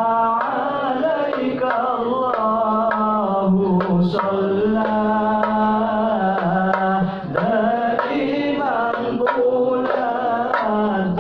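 Sholawat chanting for a maulid: a voice sings in long, drawn-out notes that glide through an ornamented melody, over a steady hand-drum beat.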